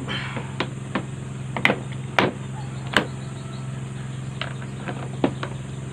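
Hard plastic tool carrying case for a Bosch GSB 120 drill being handled and its latches worked: a series of sharp plastic clicks and knocks, over a steady low hum.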